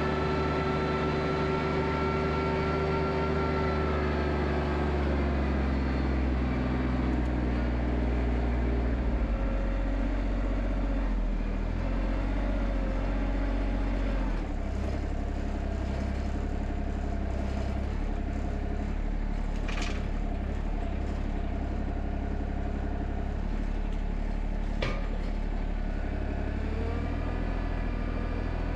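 A compact tractor's diesel engine running, its engine speed shifting up and down several times. Two sharp knocks come about two-thirds of the way through and again near the end.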